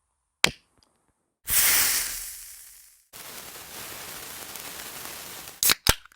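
A run of editing sound effects: a sharp click, then a loud bright burst of noise that fades away over about a second and a half, then a steady hiss for about two and a half seconds, ending in a quick pair of sharp clicks.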